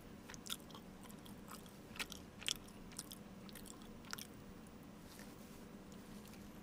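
A person chewing a crispy snack close to the microphone: several sharp crunches over the first four seconds or so, then quieter chewing.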